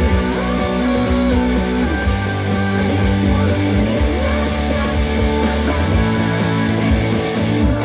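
Rock music with electric guitar: an instrumental passage of the song with no vocals, guitar lines sliding between held notes over a steady bass.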